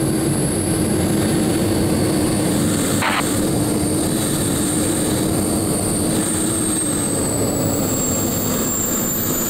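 Bede BD-5J's small Microturbo TRS-18 turbojet running steadily, heard from inside the cockpit. A high whine slowly falls in pitch, and there is one brief click about three seconds in.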